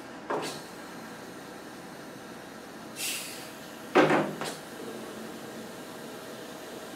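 Short hisses of compressed air from a pneumatic caulking gun, just after the start and again about three seconds in. About four seconds in come a couple of sharp knocks, the loudest sound here.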